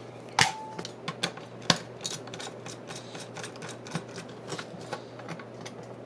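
Plastic casing of a Dell Inspiron B130 laptop being handled: the lid clicks shut about half a second in, followed by a sharp knock and a run of small clicks and taps as the laptop is turned over and its bottom access panel is taken off.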